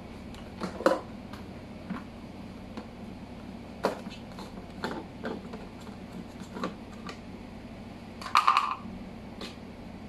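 Scattered plastic clicks and knocks as the wet/dry vacuum's motor head and pleated HEPA cartridge filter are handled. There is a louder short rattling scrape about eight and a half seconds in, as the filter is pulled off the head.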